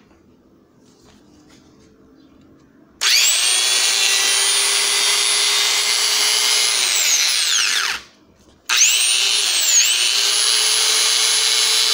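Bosch 670 W angle grinder switched on about three seconds in and running at full speed with a steady high whine. It winds down in a falling whine when switched off, then is started again about a second later and runs on. It runs now that the burnt-off coil supply wire has been spliced, showing the fault is cured.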